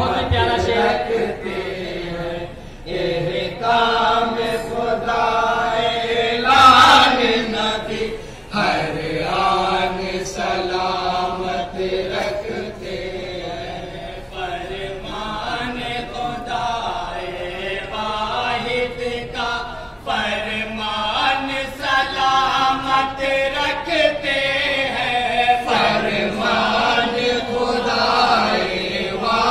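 A group of men chanting a naat together in unison, amplified through a microphone, with long held notes.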